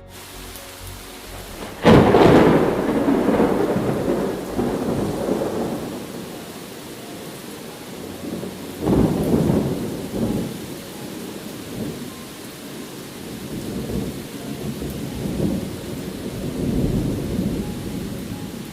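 Thunderstorm: steady rain with a sudden loud thunderclap about two seconds in that rolls away over several seconds, a second clap near the middle, then softer rolling rumbles.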